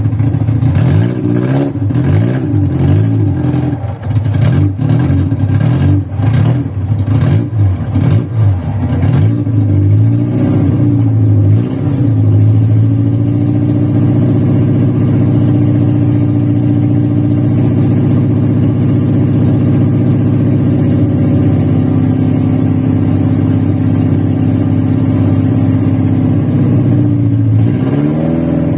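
Carbureted VW Voyage four-cylinder engine just after a cold start, running rough and uneven with the revs surging up and down for about twelve seconds, then settling into a steadier idle; the revs dip and pick up again near the end. The roughness comes from worn old mechanical parts and a bad carburetor after the car sat for days.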